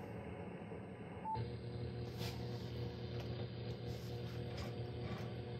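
10-meter HF transceiver speaker hissing with band noise; a short electronic key beep sounds about a second in, after which the hiss turns brighter with a steady hum under it. Several light clicks follow as knobs on the radio equipment are turned.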